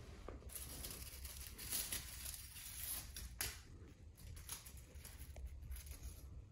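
Rustling and crinkling handling noise with scattered light clicks, the sharpest about three and a half seconds in, over a steady low hum.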